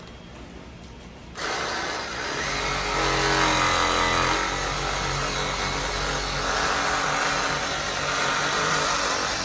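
Reciprocating saw running and cutting through a staghorn fern's root mass and growing medium to split the plant in two. It starts suddenly about a second and a half in, and its pitch wavers as the blade bites.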